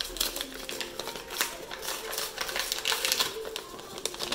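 Gift packaging being handled and opened by hand: a quick, irregular run of clicks and crackles, over faint background music.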